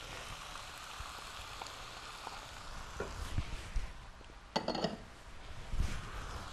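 Rotini, mushrooms and onion sizzling in a nonstick pot as tomatoes are added and worked in with a wooden spatula. A few knocks of the spatula against the pan and a brief clatter about four and a half seconds in.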